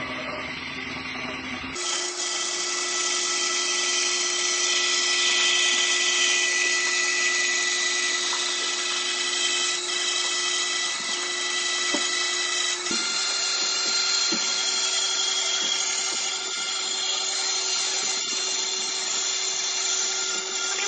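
Band saw running and cutting through a wooden board: a steady machine whine with the blade's hiss in the wood. The sound shifts abruptly about two seconds in and again a little past halfway.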